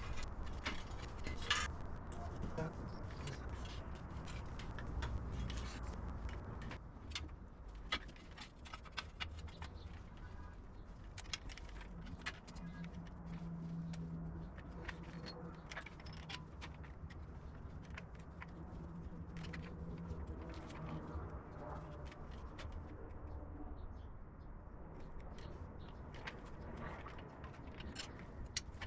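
Scattered metallic clicks, clinks and knocks of hand tools and parts being handled during a wheel hub bearing assembly swap.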